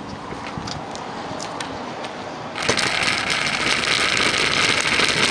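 Outdoor background noise. About two and a half seconds in, it jumps suddenly to a loud, steady hiss.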